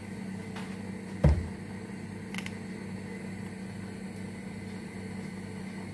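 Steady low hum of kitchen machinery, with one dull, deep thump about a second in and a faint click a little later.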